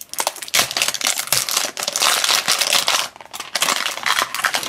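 Crinkling and rustling of a plastic blind-bag wrapper handled together with a hard plastic toy carrier, with many small clicks throughout. It eases off briefly about three seconds in.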